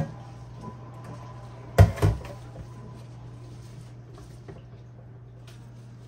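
Two quick knocks about a quarter second apart, about two seconds in, over a steady low hum, with a sharp click at the very start.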